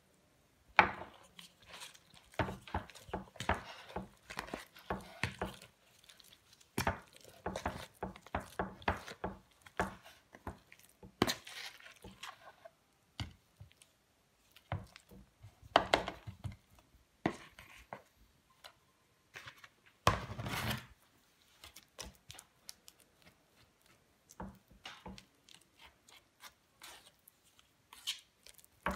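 A metal putty knife stirring and scraping damp clay mixed from clay powder and water in a plastic bowl, then scraping and tapping the clay on a board, in irregular knocks, clicks and short scrapes.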